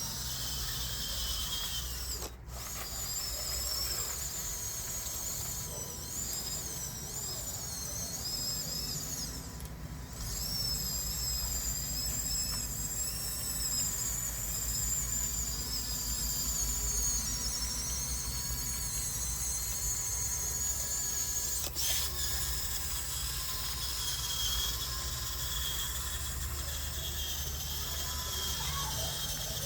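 Small electric drive motors of a Huina 1554 RC bulldozer whining as it drives and pushes sand, the high whine wavering up and down in pitch with the throttle, over a low rumble. The sound drops out briefly twice.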